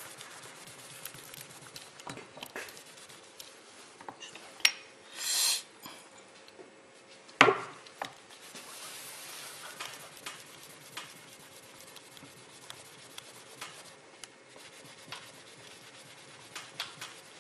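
Sandpaper and a tissue rubbing and scraping over a small cast metal-putty test piece on a workbench, with light clicks of the piece shifting. A short hiss comes about five seconds in, and a sharp knock, the loudest sound, about seven and a half seconds in.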